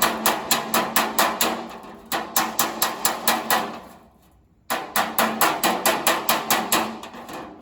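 Body hammer tapping sheet steel against a dolly held behind it, quick even strikes about five or six a second in two runs with a short pause between. The taps are hammer-and-dolly work leveling a tack-welded door patch panel against the door skin until the seam is flush, ready for the final weld.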